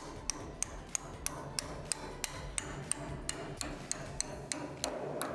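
A hammer striking a steel hinge pin, driving it into a shipping container door's hinge butt in steady, even blows at about three a second with a metallic ring. The pin is a tight fit, so it has to be pounded in.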